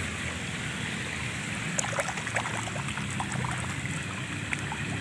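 Steady trickling of water in a koi pond, with small splashes and slurps at the surface from about two seconds in as koi crowd around a hand in the water.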